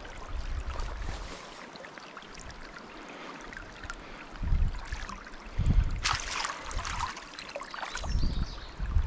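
Shallow stream water trickling over rocks, with a few bumps and splashes around the middle and near the end as a netted trout is handled in the water.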